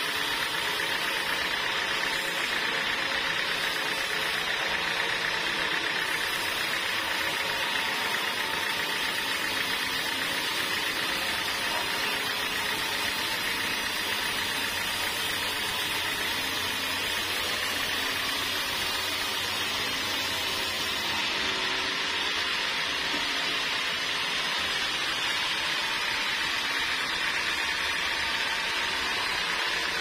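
Homemade band sawmill running, its band-saw blade cutting lengthwise through a jackfruit log: a steady, unbroken sawing noise with the machine's motor running.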